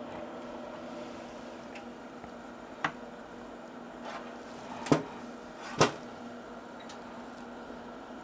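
Three sharp clicks, the second and third loudest, over a steady hum of bench equipment, as the Keysight 3458A multimeter is operated and switched between measurement functions.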